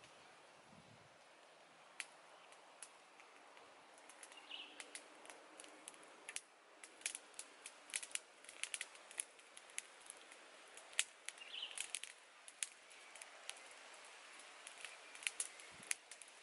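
Small wood fire crackling under a cooking pot: scattered sharp pops and snaps, sparse at first and coming much more often after about seven seconds.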